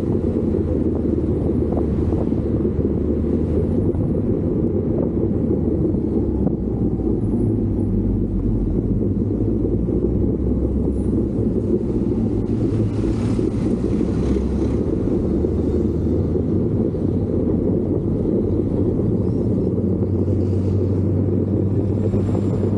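Steady low rumble of a moving vehicle's engine mixed with wind buffeting the microphone, unbroken throughout.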